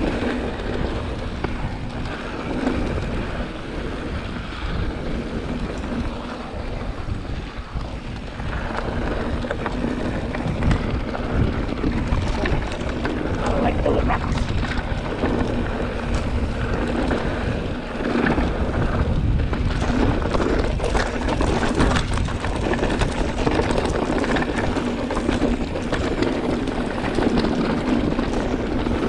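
Mountain bike riding fast down a dry, rocky dirt trail: wind buffeting the microphone over the constant rattle of the bike and the tyres crunching over dirt and stones.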